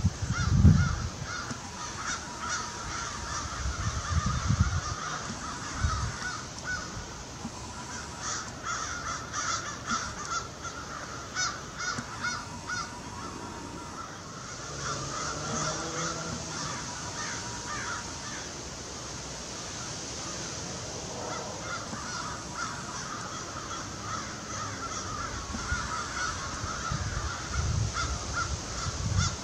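A flock of American crows cawing, many birds calling over one another in short, repeated, overlapping caws.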